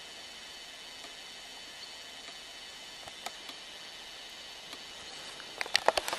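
Steady hiss of an old Hi8 camcorder's sound track, with a few faint ticks and a quick run of sharp clicks near the end.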